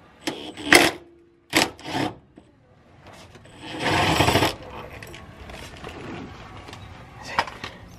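Cordless Makita driver with a socket on an extension running in short bursts as it spins out a 13 mm exhaust hanger bolt. The longest and loudest run comes about four seconds in.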